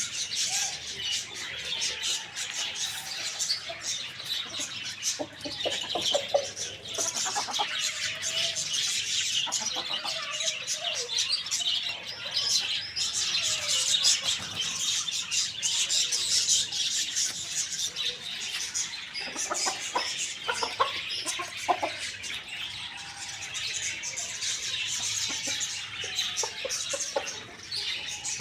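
Chickens clucking and calling while feeding, over a dense, continuous high-pitched chirping of birds, with a few clusters of short clicks.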